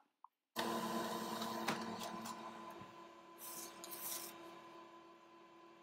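HP printer running as it prints a page: a steady motor hum and whirring paper feed that start about half a second in and slowly fade. Near the middle come a few brief papery swishes as the printed sheet slides out and is taken.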